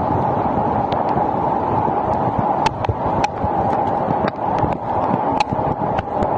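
Heavy downpour: a steady hiss of rain, with scattered sharp taps of drops striking close by.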